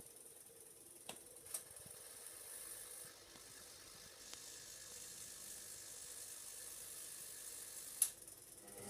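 Hoover front-loading washing machine running quietly, with a faint steady hiss and a few sharp mechanical clicks, the loudest near the end; its drum motor starts to run just as it ends.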